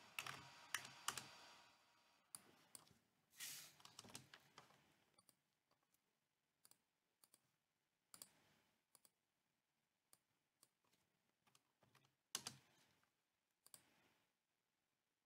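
Faint, scattered computer keyboard and mouse clicks as values are typed in and boxes ticked, in short clusters with long quiet gaps between.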